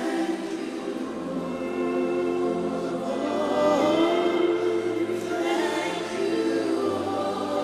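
Congregational worship singing: many voices singing a slow, sustained melody together over a keyboard pad and bass.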